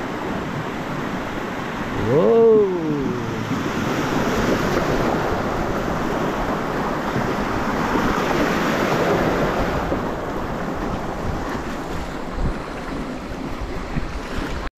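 Wind buffeting the microphone over rushing river water. About two seconds in, a single short call rises and falls in pitch.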